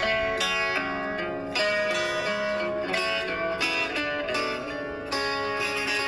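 Music on a plucked string instrument: notes and chords struck about every half second to second and left to ring.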